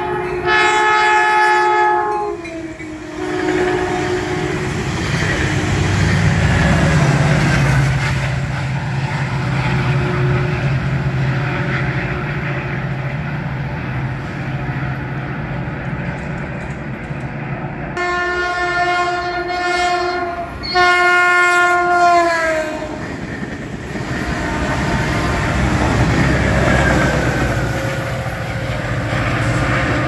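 Caltrain commuter train sounding its multi-tone horn: one long blast at the start, then two more blasts a little past halfway, the last sliding down in pitch as it cuts off. Between and after the blasts the train runs with a steady low rumble and some clickety-clack of wheels on rail, which builds again near the end as a train approaches.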